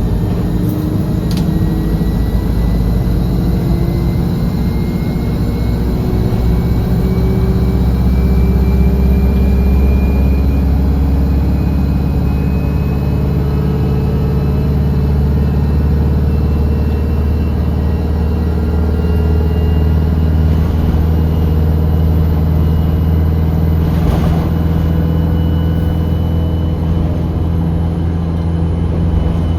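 A bus engine heard from on board, with a deep steady rumble and a whine above it that rises slowly in pitch as the bus picks up speed.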